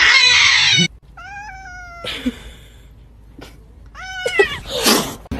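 Domestic cat yowling in drawn-out meows, three calls with short harsh noisy bursts between them, the loudest at the start.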